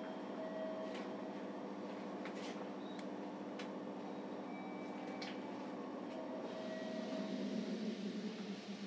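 Steady hum inside a stationary JR Kyushu 305 series electric train car, with a few sharp clicks scattered through it. A louder low rumble swells about seven seconds in and fades before the end.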